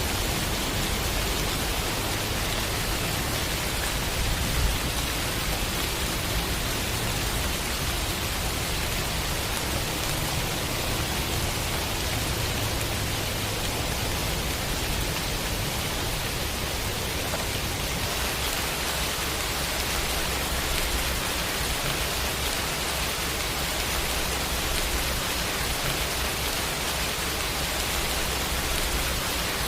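Steady rain sound effect: dense, even hiss of heavy rainfall without pauses or distinct drops.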